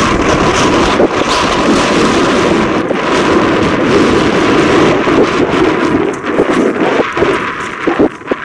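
Steam locomotive whistle, the Strasburg Rail Road 'ghost whistle', sounding one long blast of about eight seconds that stops near the end. Wind on the microphone is mixed in.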